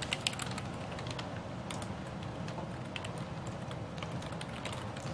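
Computer keyboard keystrokes as a password is typed: a few quick clicks near the start, then scattered, sparser clicks over a low steady hum.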